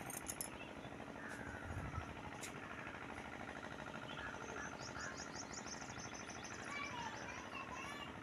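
Birds chirping and calling, short sliding notes here and there, with a rapid high trill about five seconds in, over a faint steady hum. A few sharp clicks at the very start.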